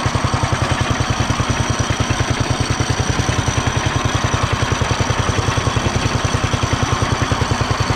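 Engine of an early Simplicity-built garden tractor running at low throttle as the tractor rolls in first gear, its two-speed hi-low pulley in high: a steady, even chug of about ten pulses a second.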